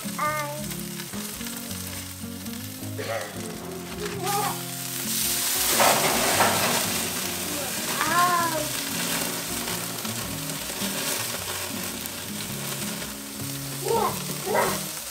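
Snoek sizzling on a wire grill over a hardwood fire: a steady frying hiss that swells louder about five seconds in, then settles.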